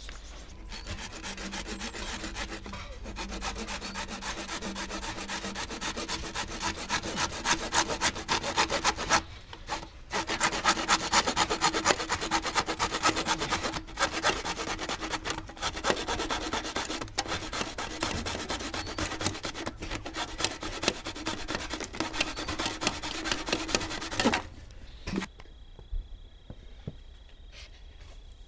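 Handsaw cutting through black plastic waste pipe with quick back-and-forth rasping strokes, with two short breaks, stopping a few seconds before the end.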